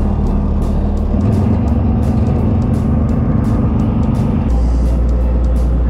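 Fishing boat's engine running with a steady low drone. A higher hum joins about a second in and stops about four and a half seconds in, when the low drone grows stronger.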